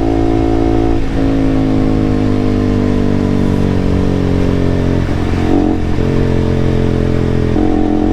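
KTM single-cylinder motorcycle engine running under way, its note sagging slowly in pitch with breaks about a second in, around five seconds and again near the end, mixed with wind noise on the lavalier mic.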